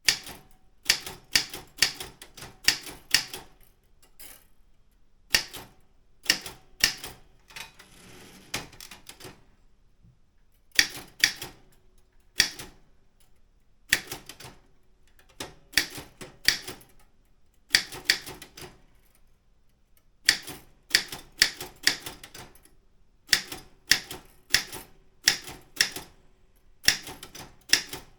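Daro Optima M16 manual office typewriter with a wide A3 carriage being typed on: sharp keystrokes of the typebars hitting the platen, in quick irregular clusters with short pauses between words. About eight seconds in there is a quieter rasping sound lasting a couple of seconds.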